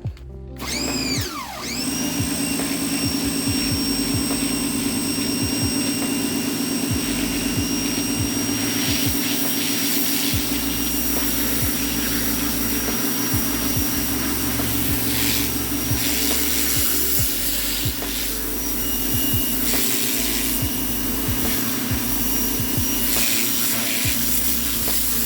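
RYOBI 1600 PSI electric pressure washer running steadily: its motor and pump hum under a hiss of spraying water. A short sound at the very start falls sharply in pitch.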